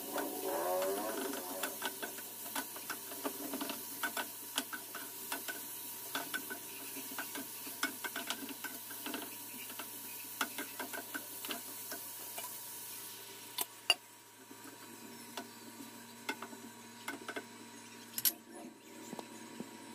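Metal spatula and fork clicking and scraping against a frying pan while stir-frying vegetables, in irregular taps about one or two a second. Two louder clacks of the utensils on the pan stand out near the end.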